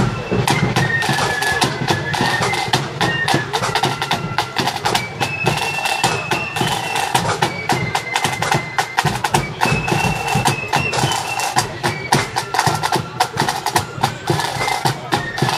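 Marching flute band playing a tune: shrill flutes carry a stepping melody over fast, busy snare drumming and a bass drum beat.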